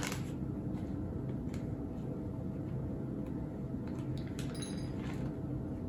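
Light clicks and clinks of small objects handled on a table, with a cluster of clicks about four seconds in and one clink that rings briefly.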